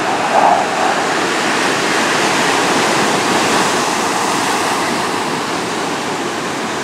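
F/A-18 Hornet's twin jet engines, a loud steady roar as the fighter flies past.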